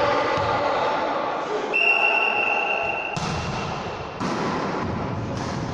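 Ball game in an echoing sports hall: a referee's whistle is blown once for about a second, and the ball thumps a few times, with players' voices.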